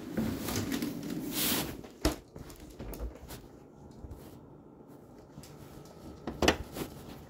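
Rustling handling noise, then a sharp knock about two seconds in and a couple of sharp clicks near the end.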